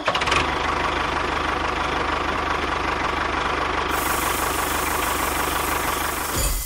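An engine idling steadily with a knocking chug.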